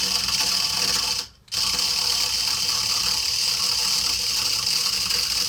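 Hexbug Fire Ant robot's small electric motors and plastic gear trains driving its tracks, giving a steady high-pitched whir. It stops for a moment about a second in, then starts again.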